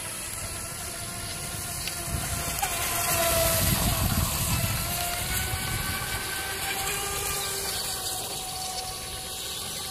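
Brushless electric motor of an Atomik Barbwire XL RC race boat whining at speed, its pitch shifting a little as the boat turns. It grows louder about three to four seconds in as the boat passes close.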